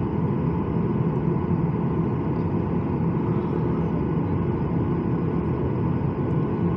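Boeing 737 MAX 8's CFM LEAP-1B turbofan engines heard from inside the cabin, a steady hum and rumble at low thrust while the jet taxis slowly onto the runway.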